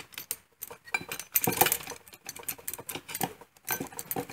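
Irregular metal clinks, knocks and scrapes from locking pliers twisting a rusted, torch-heated part out of its sleeve in a tractor parking brake assembly. The louder clusters come about one and a half and three seconds in.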